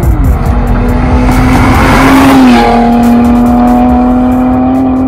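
A car engine held at steady high revs, with a rush of noise that swells and fades around the middle, like tyres or exhaust under load.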